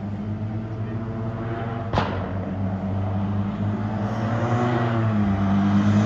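Rally car's turbocharged engine approaching and growing steadily louder, its revs rising and falling with gear changes in the last couple of seconds. A single sharp crack about two seconds in.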